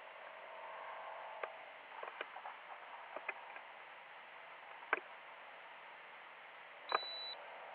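Faint hiss with scattered light clicks and ticks. Near the end a sharp click is followed by a short, steady, high-pitched electronic beep.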